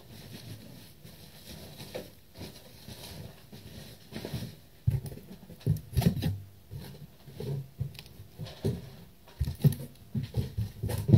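Irregular low thumps and a few sharp knocks from a computer monitor and its packing being handled close to the microphone, quiet at first and busier from about halfway.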